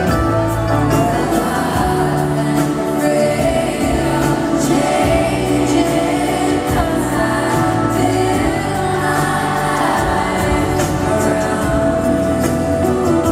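Live acoustic country performance: women's voices singing together in harmony over plucked banjo and acoustic guitar.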